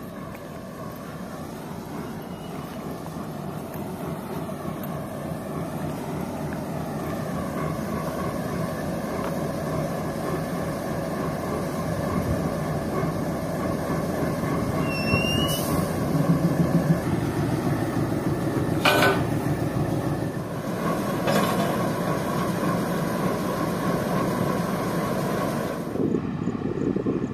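Diesel locomotive engine running as the locomotive moves slowly past, growing louder as it approaches and then holding steady, with a sharp clank about two-thirds of the way through.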